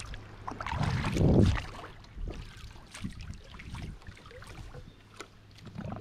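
Water sloshing and lapping against the hull of a small outrigger boat, with one louder surge about a second in, then softer splashes.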